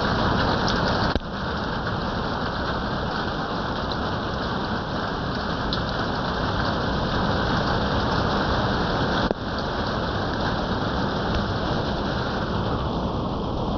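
Heavy rain falling steadily on roofs, a dense, even hiss of water.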